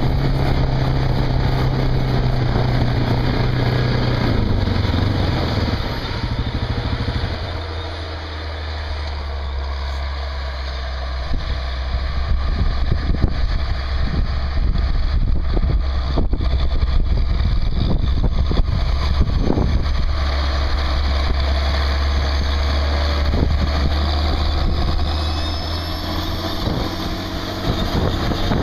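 Case IH Quadtrac tractor's diesel engine running with a steady high turbocharger whistle over the engine. The engine note drops a few seconds in and holds lower.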